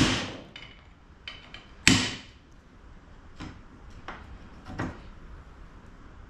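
Hammer and punch driving ground-off rivets out of a steel brake backing plate. Two hard, ringing metal strikes come at the start and about two seconds in, then a few lighter knocks. The rivets are stuck fast and won't come out.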